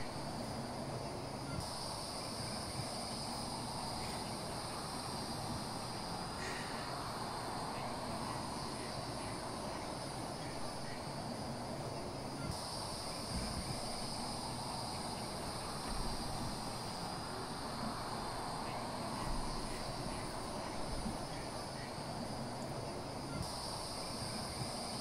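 Steady high-pitched evening insect chorus of crickets or similar insects. It swells about two seconds in, drops back near the middle and swells again near the end, over a low, even rumble.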